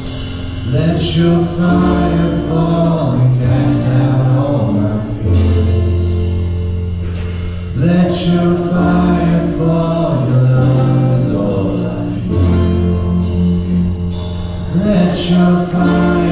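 Live church worship band playing a worship song: voices singing over keyboard and guitar, with sustained low bass notes changing every few seconds.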